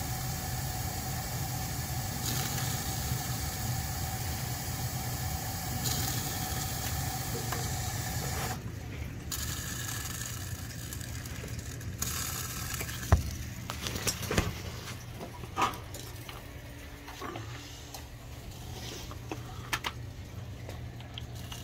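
AO Smith gas water heater burner running with a steady rushing hiss over a low hum, then the flame cutting out about eight and a half seconds in, the shutdown fault that persisted after a new burner and gas control valve. A low hum carries on, with scattered clicks and knocks of handling, the loudest a sharp knock about thirteen seconds in.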